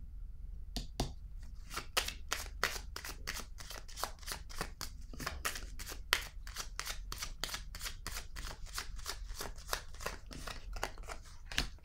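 A deck of oracle cards shuffled by hand: a quick, steady run of card slaps, about three or four a second, starting about a second in.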